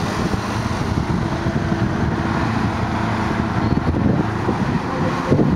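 A car driving past on the road, its engine and tyres mixed with wind rumbling on the microphone.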